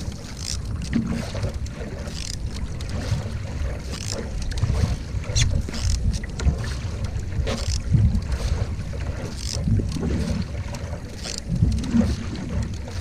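Canoe paddle strokes splashing and dripping in the water, roughly once a second, over a steady rumble of wind on the microphone.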